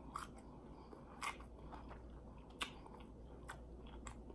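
A person chewing a crisp deep-fried egg roll with the mouth closed, close to the microphone: soft chewing with sharp crunches about once a second.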